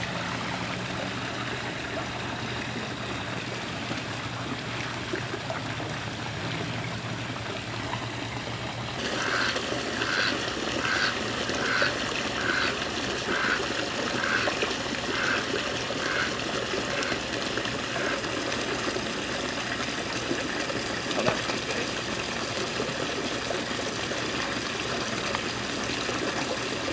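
Steady trickling water in a swimming pool, with a duck splashing as it bathes. About nine seconds in, a run of short high pips, roughly two a second, repeats for several seconds.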